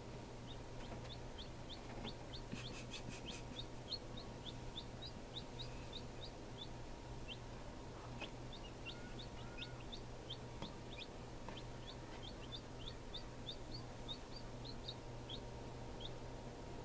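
Newly hatched chicks peeping: a steady run of short, high, falling peeps, two or three a second, with a few quick clicks about three seconds in and a low steady hum underneath.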